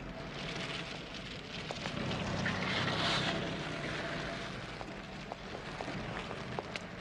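A black Citroën DS saloon rolls up over cobblestones. Its tyre noise swells to a peak about three seconds in and fades as the car stops. This is followed by sharp, scattered clicks of footsteps on the stones.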